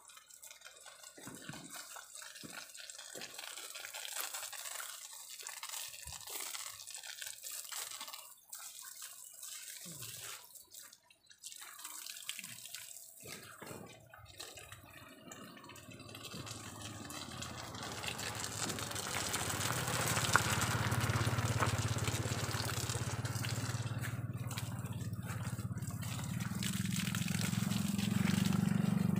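Running water from a garden hose splashing, faint and broken at first, then growing steadily louder about halfway through as the hose is poured over a person's head and shoulders close by.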